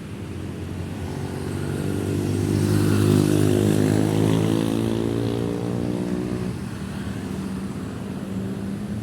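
Busy street traffic with one motor vehicle passing close: its engine note grows louder to a peak about three seconds in, then drops in pitch and fades away by about seven seconds.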